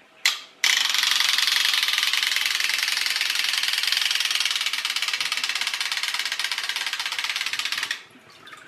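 Wind-up clockwork toy shark's spring motor running as it swims, a fast, even mechanical buzz of ticks with its flapping tail in the water. It starts just after a short knock as the toy is set down, and cuts off suddenly near the end.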